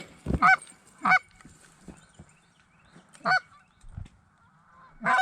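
Goose honking: four short, two-note honks that break upward in pitch, spaced irregularly across a few seconds.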